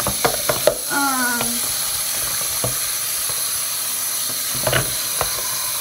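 Water from a bathroom tap running steadily into the sink, with a few light knocks as a plastic pencil case is handled and scrubbed under it.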